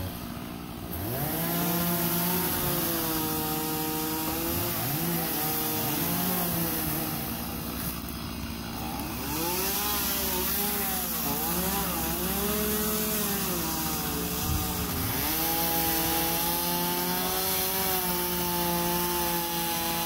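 Chainsaw running throughout, its pitch repeatedly rising and falling as it revs and bogs while cutting into a pine tree.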